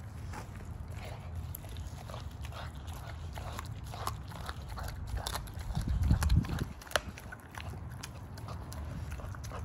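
An American bully dog chewing and crunching a raw whole chicken on concrete, with irregular wet crunches and clicks as its teeth work through the bird. A louder low rumble comes about six seconds in, followed by a sharp crack.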